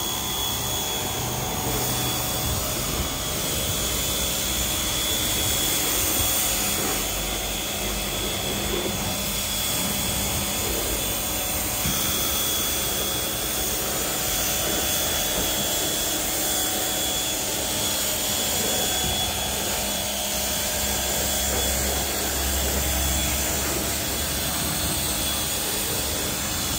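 An electric detailing tool running steadily: a constant hiss with a thin, steady high whine.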